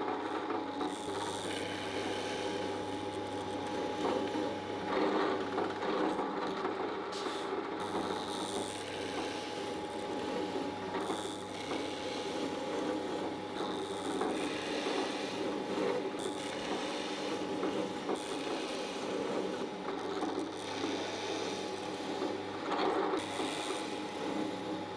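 Drill press running, its 8 mm brad point bit boring a series of dowel holes into a timber rail and a veneered panel. A steady motor hum lies under the rasp of the bit cutting, which swells and eases with each hole.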